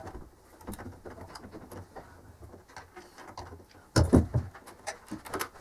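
Handling noise from working on a dismantled thickness planer: light clicks and knocks of metal parts as the feed roller and its chain drive are handled, with a louder clatter of metal knocking about four seconds in.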